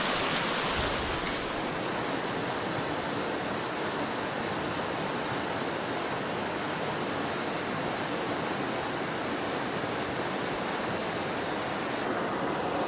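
Steady rushing of a fast-running, swollen creek: an even roar of water with no breaks.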